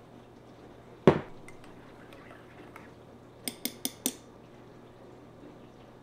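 A spoon clinks four times in quick succession against a ceramic mug while stirring in creamer. A single louder thump comes about a second in. A dishwasher hums faintly throughout.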